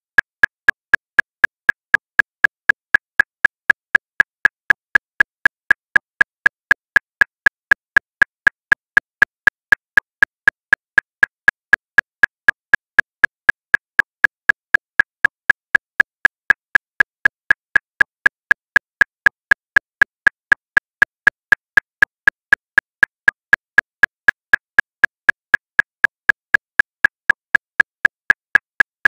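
Metronome clicking steadily at 239 beats per minute, just under four clicks a second. Every click is a short, equally loud, slightly pitched tick with no accented beat.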